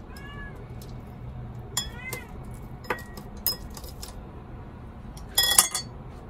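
A hungry cat meows twice, short calls that rise and fall in pitch, as it asks to be fed. A few light knocks follow, and about five and a half seconds in, chopsticks clatter briefly against a ceramic plate and bowl, the loudest sound.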